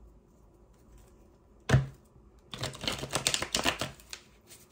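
A deck of tarot cards being shuffled by hand: one sharp snap of the cards about two seconds in, then a rapid flutter of card flicks lasting about a second and a half.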